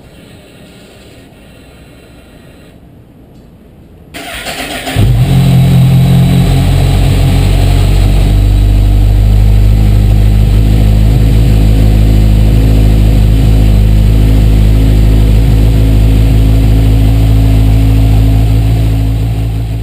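Kawasaki Z1000 inline-four motorcycle engine cranked on the electric starter about four seconds in, catching within a second and then idling steadily and loudly, fading near the end.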